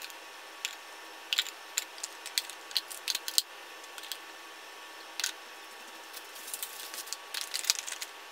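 Bottles, a roll of tape and small boxes being set down into a plastic storage caddy: scattered light clicks and knocks of items against plastic, in two clusters, over a faint steady hiss.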